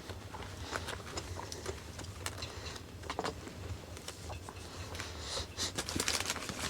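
Faint rustling and crinkling of a paper sandwich wrapper with scattered small clicks, busier near the end, over a low steady hum.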